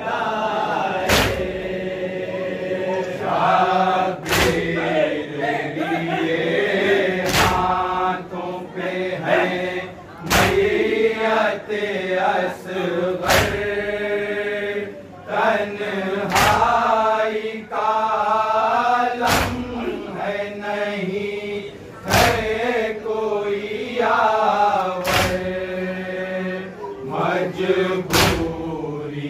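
A group of men chanting a nauha, a Shia mourning lament, in unison behind a lead reciter. Every three seconds or so all of them strike their chests at once in matam, giving one sharp collective slap.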